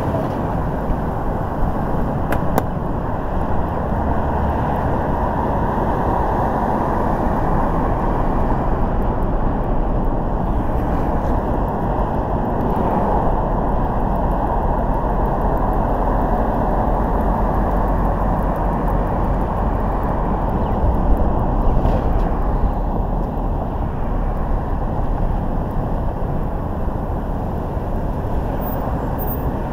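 Steady road noise of a car being driven: a low rumble of tyres and engine.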